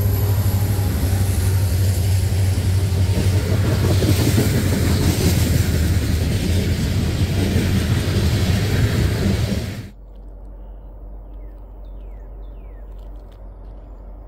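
Loaded coal train passing close by: the last of its BNSF SD70MAC diesel locomotives goes past with a steady low engine drone, then loaded coal hoppers roll by over the rails in a loud, steady rumble. About ten seconds in the sound cuts off abruptly to quiet outdoor ambience with a few faint chirps.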